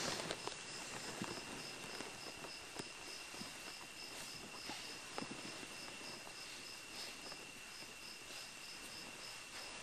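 A cricket chirping steadily, a high chirp about three times a second, over faint hiss and a steady high tone, with occasional small clicks and knocks.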